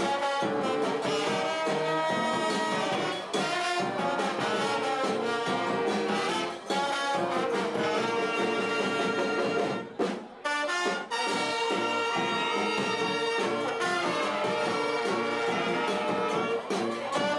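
Live brass band with saxophones, trumpets, trombones and a bass drum playing a soul tune, with a short break in the playing about ten seconds in.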